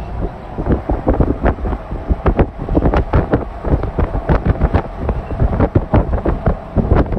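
Wind buffeting the microphone, with rapid irregular thumps and a heavy low rumble throughout.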